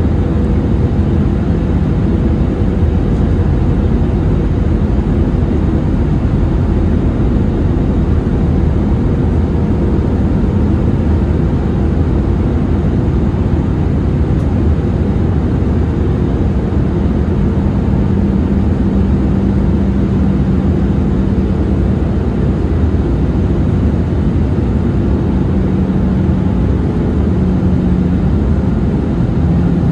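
Steady cabin noise of an Airbus A320-200 in flight, heard from a window seat beside the wing-mounted jet engine: a constant low drone of engine and airflow, with a faint hum that wavers in and out.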